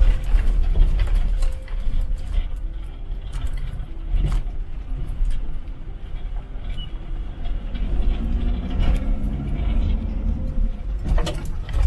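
Interior of a Mercedes T1N Sprinter van driving over a rough dirt road: a steady low engine and road rumble with frequent short rattles and knocks from the van's body and loose gear.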